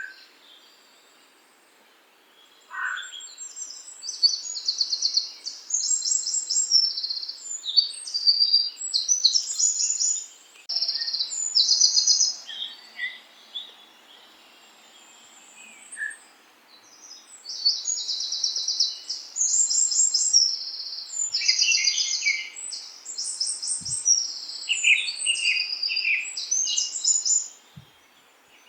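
Songbirds singing in the countryside: bursts of high, rapid trilled and chirping phrases, pausing briefly near the start and around the middle, over a faint steady background hiss.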